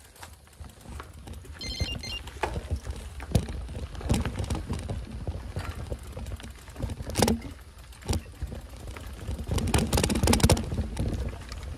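Trek Marlin 6 hardtail mountain bike rattling and knocking as it rides over the trail, with wind rumbling on the microphone. The clatter gets denser around ten seconds in.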